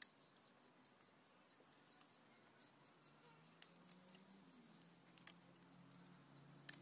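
Near silence broken by a handful of faint sharp clicks as bonsai training wire is handled and bent around the branches, over faint high chirping.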